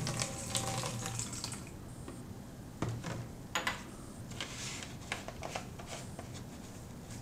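Liquid pouring into a plastic jug for about a second and a half, followed by a few light knocks and clicks as the plastic jugs and lab glassware are set down and handled.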